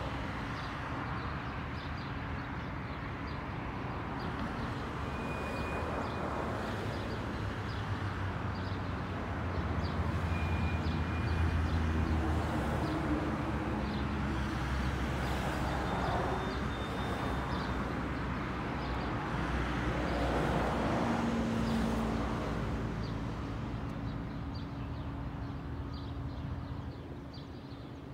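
Distant locomotive engine rumbling during shunting, swelling louder about ten seconds in, easing, rising again a little past the twenty-second mark and fading near the end, over a steady low hum.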